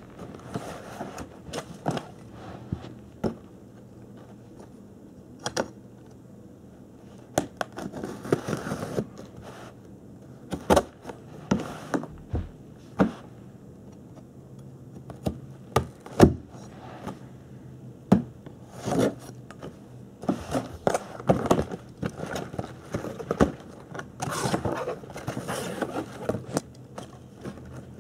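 A cardboard shipping box being handled and cut open with a knife: scattered knocks of the box being turned and set down, with scraping and ripping as the blade goes through the packing tape and the flaps are pulled back.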